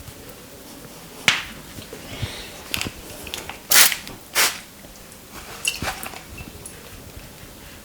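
Sharp slaps and clicks from a hands-on Indian head massage, about eight in all at irregular spacing. The two loudest come about half a second apart in the middle.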